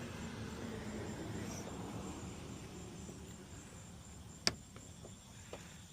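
Faint steady hum of insects, with one sharp click about four and a half seconds in as a pick pries at the plastic trim on a truck's door handle.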